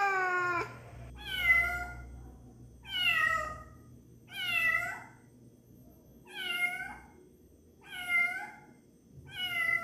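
A cat meowing over and over: the end of a longer meow first, then six short, high meows, each falling in pitch, about one and a half seconds apart.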